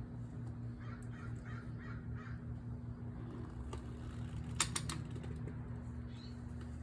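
A quick run of about six harsh bird calls a second or so in, then a few sharp clicks near the middle, over a steady low hum.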